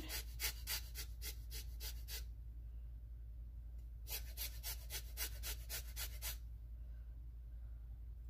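Lemon rubbed back and forth against a metal rasp zester, grating off the peel in quick scraping strokes about four a second. Two runs of a couple of seconds each, with a short pause between.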